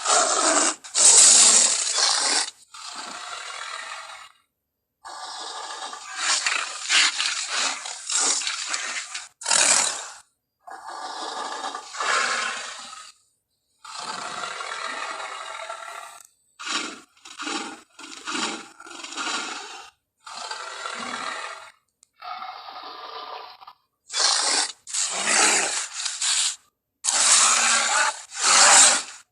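A string of gorilla vocalisation sound effects, one after another: separate, rough, noisy calls, each about half a second to two seconds long, with short silent gaps between them.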